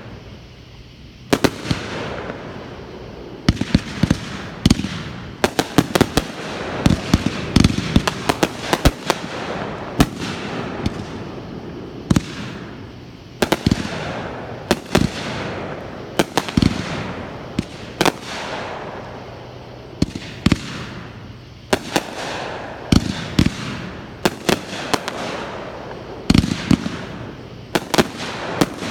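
Aerial fireworks display: after a short lull, a rapid barrage of shell bursts, dozens of sharp bangs in quick succession, each trailing off in rumble and echo.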